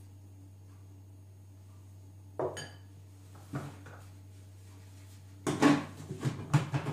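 The black plastic lid of a Silvercrest Monsieur Cuisine Connect food processor knocking and clattering onto its stainless steel mixing bowl as it is fitted and locked shut near the end. A couple of light clinks of kitchenware come before it, about two and a half and three and a half seconds in.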